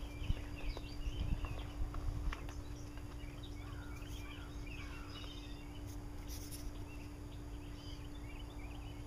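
Small birds chirping over and over, with a few short taps in the first couple of seconds as a hen pecks at food scraps on the ground, and a steady low hum underneath.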